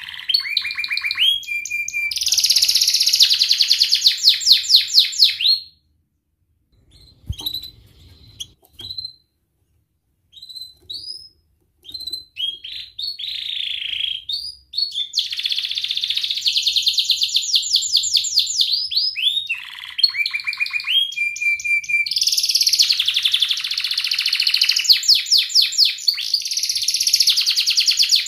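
Domestic canary singing: fast rolling trills and runs of rapidly repeated sweeping high notes. About six seconds in the song breaks off for several seconds, leaving only a few short chirps and a faint knock, then the full song resumes.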